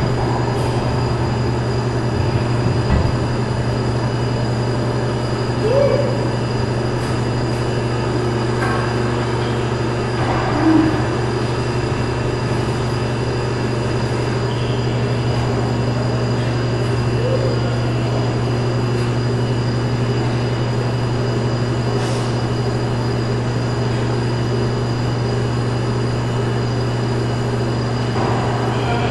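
A steady, unchanging low hum, with a few brief faint squeaks and a small bump or two over it.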